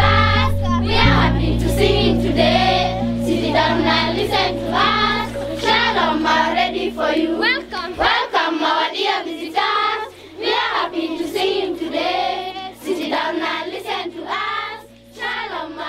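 A group of children singing together, with steady low notes under the voices that change every few seconds.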